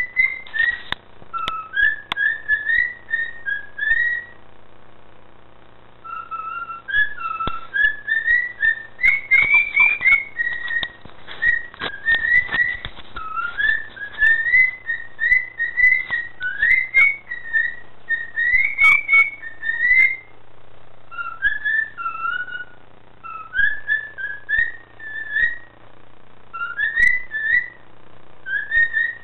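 Cockatiel whistling its song: phrases of short, clear whistled notes that bend up and down in pitch, broken by brief pauses. A scatter of faint clicks sounds in the middle of the song.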